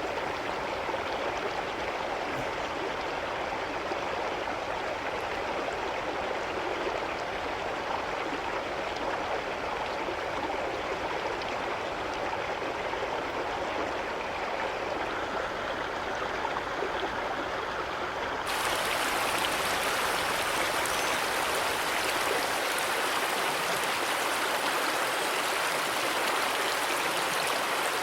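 Stream water flowing in a steady rush. About eighteen seconds in, it switches abruptly to a louder, brighter rush of water.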